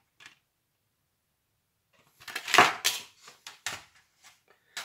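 Plastic DVD case being handled: a loud crackling clatter about two seconds in, followed by a few light plastic clicks.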